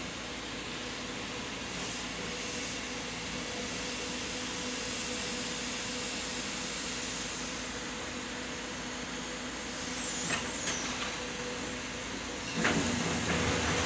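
Heavy diesel machinery, most likely the excavator's engine and hydraulics, running steadily with a constant hum. There are a few sharp clanks of metal about two-thirds of the way in, and it grows louder with more clanking near the end.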